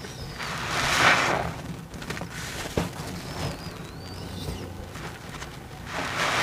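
A soapy sponge squeezed over a sink of sudsy water, with foamy water rushing and splashing out of it twice: about a second in, and again, louder, near the end.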